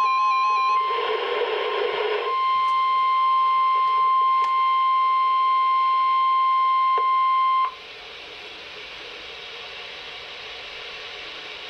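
NOAA Weather Radio warning alarm tone, a single steady high tone of about 1050 Hz, played over a weather radio, with a burst of static about a second in. The tone cuts off abruptly about eight seconds in, leaving a few seconds of quieter radio hiss.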